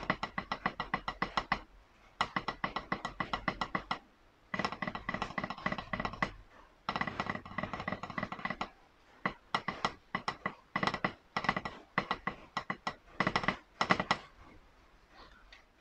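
Wooden drumsticks striking a rubber practice pad in fast stroke-roll patterns. The strokes come in rapid phrases about two seconds long with short pauses between, grow more spaced out in the second half, and stop about two seconds before the end.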